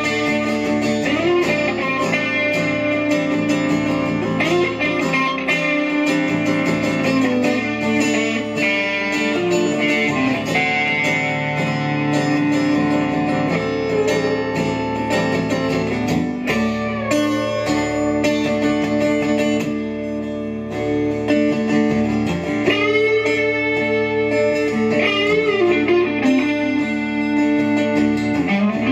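Stratocaster-style electric guitar played live as a lead over a looped guitar backing, with several bent notes in the second half.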